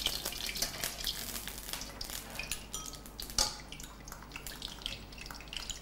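Melted ghee poured into hot oil in a steel wok, with light crackling and small spitting pops that thin out toward the end. One louder knock comes about three and a half seconds in.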